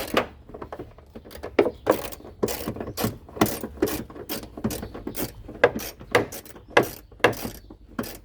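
A socket ratchet clicking in short, uneven strokes, about two to three clicks a second, as it backs out a 10 mm bolt.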